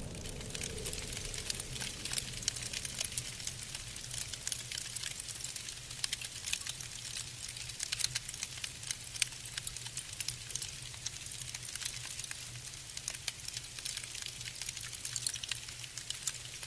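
Dense, irregular soft crackling over a low steady hum.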